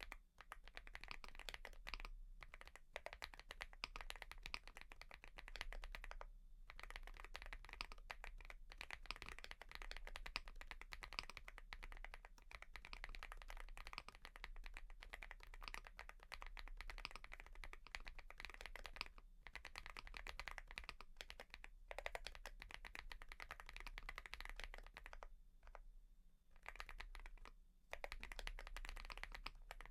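Fast, continuous typing on a Mchose GX87 mechanical keyboard with KTT Fog blue switches: a dense run of key clicks, broken by a few brief pauses and a longer pause of about two seconds near the end.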